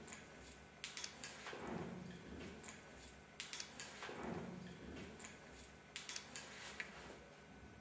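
Faint sharp clicking taps, each little cluster followed by a soft rushing swell, heard three times about two and a half seconds apart: one short recorded noise played back on a loop.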